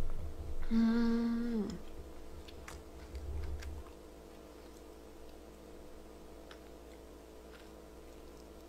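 A woman's closed-mouth "mmm" hum about a second in, held on one note and sliding down as it ends, after a knock at the very start. A few faint clicks and a low thump follow while she eats.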